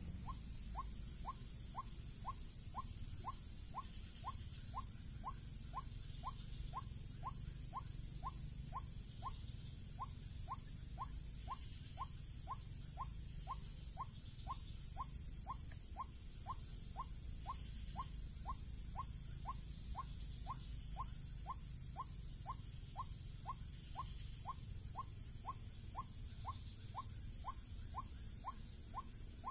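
White-breasted waterhen call played as a lure recording: a short rising note repeated evenly about twice a second, with a steady high hiss underneath.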